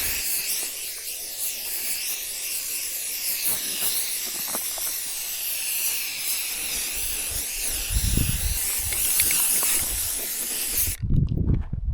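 Aerosol can of white spray paint spraying in a steady hiss that wavers as it is swept across the target dummy, cutting off about eleven seconds in. A couple of low rumbles come near the end.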